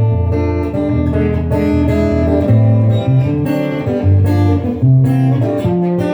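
Instrumental acoustic guitar music: plucked notes and chords over low bass notes, changing every half second or so.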